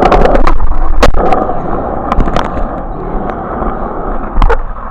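Skateboard rolling along: steady wheel rumble with scattered clicks, and sharp clacks about a second in and again near the end.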